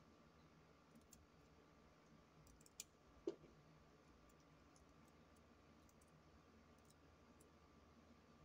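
Near silence with faint clicks of paper handling, broken about three seconds in by a sharp click and then a short knock as a tape dispenser is set down on the table.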